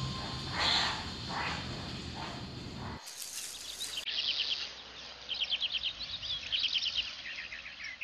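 Soft background music with a low sustained drone for about three seconds, then a sudden cut to forest ambience: birds singing in quick trilled phrases, each a rapid run of high chirps.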